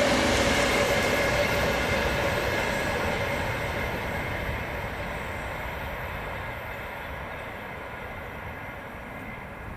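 A passing train's rolling noise fading steadily as it moves away, with faint steady tones early on that die out with it.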